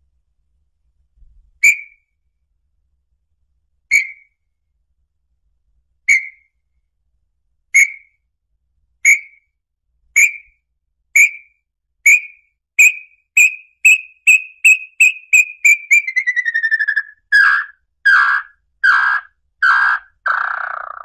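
Small-billed tinamou (lambu-pé-vermelho) song: clear whistled notes that start about two seconds apart and speed up into a rapid trill sliding down in pitch, then a few louder, lower notes near the end.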